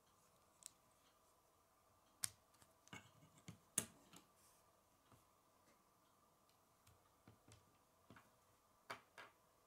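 Small plastic Lego bricks being handled: scattered sharp clicks and light knocks of the pieces, with two louder snaps about two and four seconds in, over a faint steady hum.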